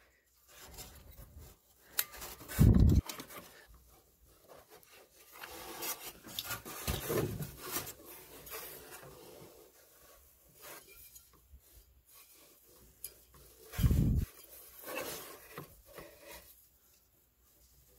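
Handling noise from a furnace inducer motor assembly and tools: a sheet-metal mounting plate rubbing and scraping, small clicks and clinks, and three dull thumps, the loudest about two-thirds of the way through.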